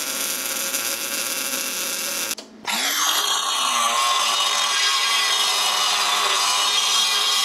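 MIG welder crackling for about two seconds, then a brief drop at a cut. An angle grinder spins up and runs steadily against a quarter-inch steel plate.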